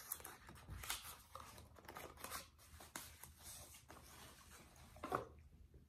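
Faint rustling and crinkling of cosmetic packaging being handled, in irregular small strokes.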